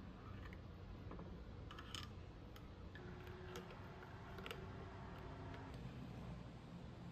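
A few soft, scattered clicks and taps over a low steady rumble, with a faint steady tone for a couple of seconds in the middle.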